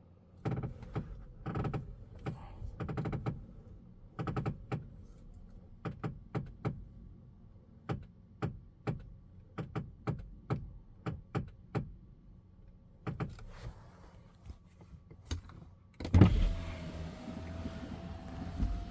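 Tesla Model X steering making repeated sharp clicks and knocks, irregular, some single and some in quick clusters. The owner suspects the steering gear was damaged during a half-axle repair. About sixteen seconds in, a loud thump is followed by a steady hum with a faint, slowly rising tone.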